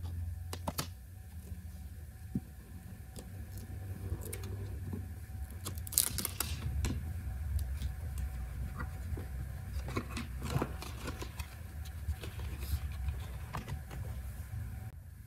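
Pages of a spiral-bound sketchbook being turned and handled, paper rustling and flapping, loudest about six seconds in and again around ten seconds, over a steady low hum.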